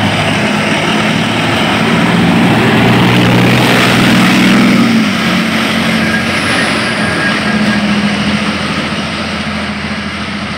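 Leopard 2 main battle tank driving past: heavy diesel engine drone and track noise, loudest a few seconds in as it passes, then fading as it drives away.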